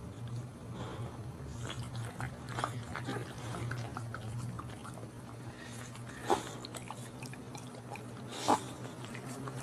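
Boxer mother dog licking her newborn puppies: a run of small wet licking and smacking sounds, with two sharper smacks in the second half, over a steady low hum.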